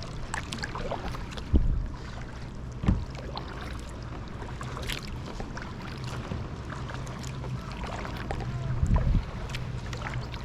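Kayak paddling: the paddle blades dipping into the water and dripping, with a few dull knocks, the loudest about nine seconds in, over a steady low rumble.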